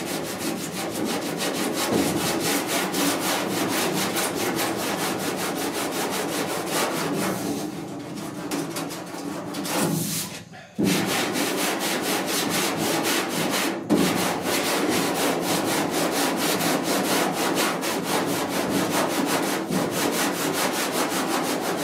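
A hand sanding block rubbing back and forth over body filler on a steel truck cab panel in quick, even strokes, block sanding to feather the filler's edges. The strokes break off briefly about ten seconds in, and there is a single knock about fourteen seconds in.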